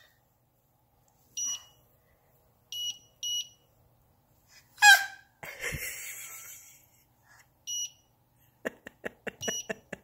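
Wine cooler's touch control panel beeping: about five short electronic beeps at irregular intervals as the buttons are pressed. About halfway there is a baby's brief loud squeal, and near the end a quick run of taps on the cooler.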